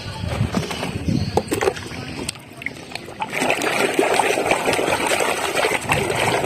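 Light knocks of a plastic toy being handled, then about three seconds in a steady rush of running water splashing over it as the muddy toy truck is washed.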